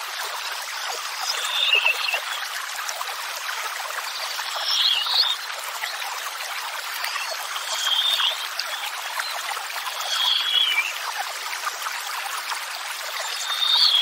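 Steady rush of running water. Over it, a songbird repeats a short, high, falling phrase about every three seconds, five times.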